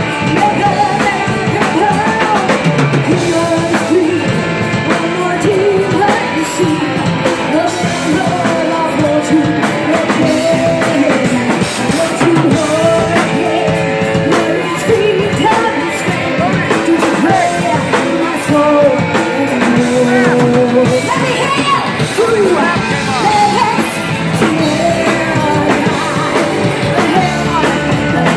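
Live rock band playing at full volume: electric guitars, bass guitar and drum kit, with a melody line bending up and down over the band.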